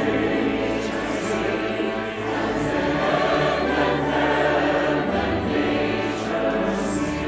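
Choir singing held chords, changing every second or two.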